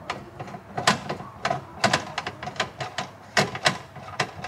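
Classic Mini automatic gear shifter giving a series of irregular sharp plastic clicks and knocks, about eight in four seconds, as the shifter knob is fitted onto the lever and handled.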